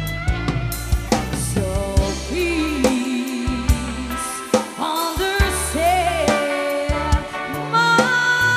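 Recorded song: a sung melody with vibrato over a drum kit and bass line.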